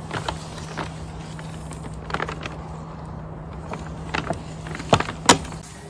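Scattered clicks and knocks of heavy electrical wire being handled and unspooled, the two loudest near the end, over a steady low hum that stops just before the end.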